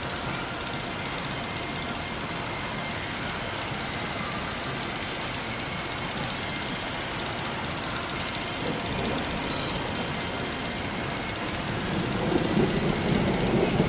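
Steady hiss of heavy thunderstorm rain, growing louder with a deeper rumble in the last couple of seconds.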